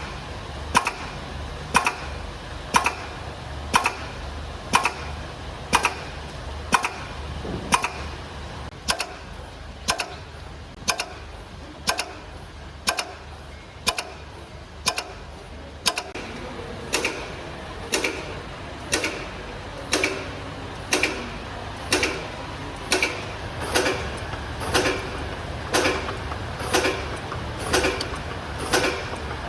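Horizontal labelling machine running on eye-drop bottles: a steady low motor hum with a sharp mechanical click about once a second, coming a little faster in the second half, as each bottle is cycled through.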